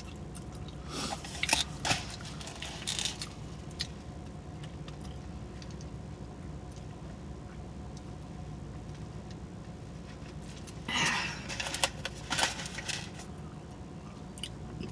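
Close-miked chewing and lip smacking on a mouthful of breakfast burrito, in two bouts of wet clicks, one about a second in and one near eleven seconds in, over a steady low hum.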